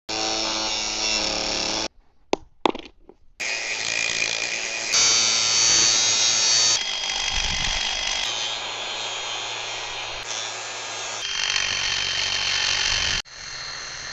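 Power tools running, heard in a string of short clips that start and stop abruptly. About two seconds in there is a brief gap with a few sharp knocks.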